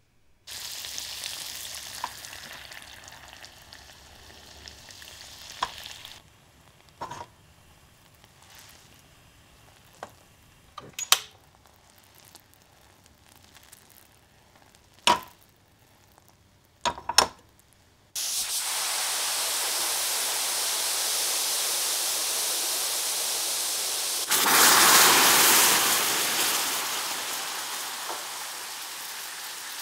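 Sugar and water cooking into caramel in an enamel milk pan. A hiss at first gives way to a quieter stretch with a few sharp clinks of the pan on the gas burner's metal grate as it is swirled. Then the caramel bubbles with a steady loud hiss, and about three-quarters of the way through hot water is poured in, setting off a louder burst of sizzling and spitting that slowly dies down.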